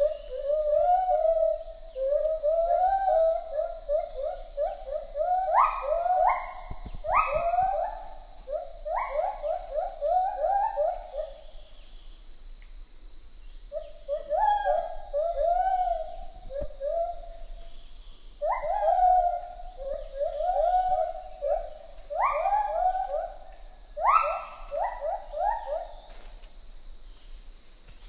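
Lar gibbon singing: a run of short, rhythmic hooting notes at a steady pitch, some of which sweep sharply upward to a much higher note. It comes in two long phrases with a short pause near the middle.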